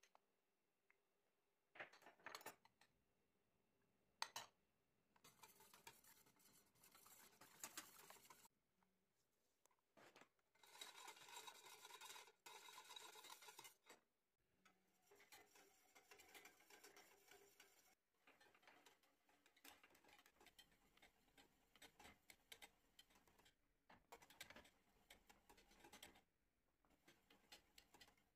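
Faint scraping and swishing of a wire whisk stirring liquid in a stainless steel saucepan, in several bursts of a few seconds each, with a couple of sharp metal knocks near the start.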